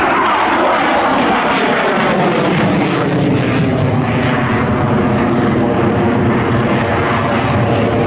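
Saab JAS 39 Gripen's Volvo RM12 turbofan running loud as the fighter flies its display. The pitch falls during the first second or so, then the jet noise holds steady.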